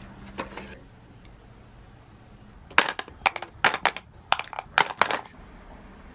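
Makeup items clacking together in a cosmetics pouch as they are handled: a cluster of about ten sharp clacks over roughly two and a half seconds, beginning a little before the middle, after one faint click near the start.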